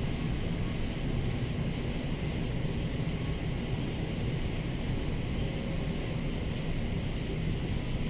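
Steady chorus of cicadas, an even high-pitched hiss, over a constant low rumble that is louder than the insects.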